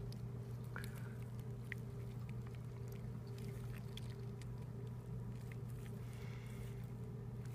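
Quiet room tone: a steady low hum with faint, scattered soft clicks from handling a dissection specimen.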